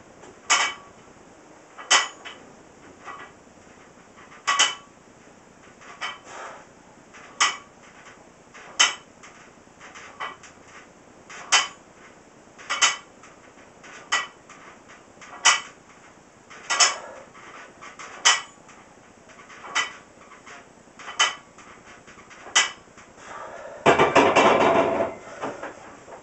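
Empty 45 lb barbell clinking and rattling at each bench-press rep, a sharp metallic clink about every second and a half. A longer, louder clatter comes about two seconds before the end.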